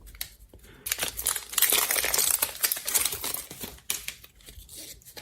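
Foil booster-pack wrapper crinkling as it is opened and handled, a dense crackle lasting about three seconds from about a second in, then fading.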